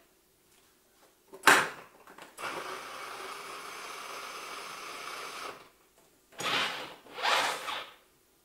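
Plastic children's ride-on toy car being handled: a sharp knock, then a steady whirr for about three seconds, then two short scraping swishes.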